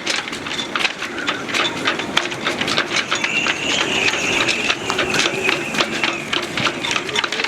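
Gusting wind in a boatyard's sailboat rigging: halyards and fittings clanking against the masts in fast, irregular clicks, with a high whistling howl in the lines that swells and fades through the middle.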